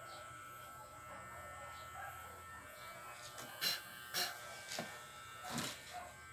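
Corded electric hair clippers buzzing steadily as they cut hair. A few short, sharp knocks come in the middle and are louder than the buzz.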